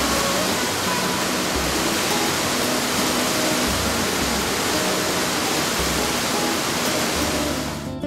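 Loud, steady rushing of whitewater cascading over a rock ledge, with soft instrumental music underneath. The water noise cuts off suddenly at the very end.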